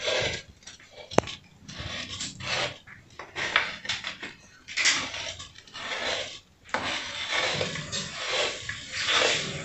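Wooden spoon scraping grated rapadura across a wooden board and into a pot, in irregular rasping strokes, with one sharp click about a second in.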